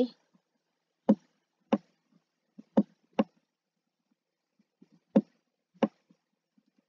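About seven sharp taps, spaced irregularly with a pause of about two seconds in the middle, from handwriting on a computer with a digital pen tool.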